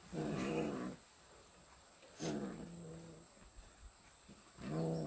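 A cat giving three low, drawn-out meows about two seconds apart, the third starting near the end; it is calling for the fat being offered to it.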